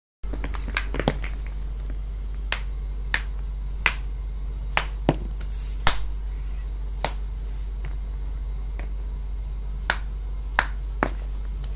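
Frozen vegetables, hard as stone, clicking and knocking sharply against each other and against hands, about a dozen times at uneven intervals, over a steady low hum.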